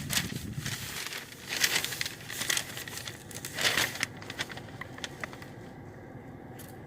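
Close rustling and crinkling, like something being handled right by the microphone, in irregular bursts for about four seconds before it settles to a faint steady hum.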